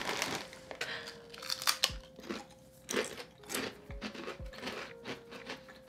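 Potato chips being bitten and chewed: a run of irregular crisp crunches. The chips are Ruffles ridged chips.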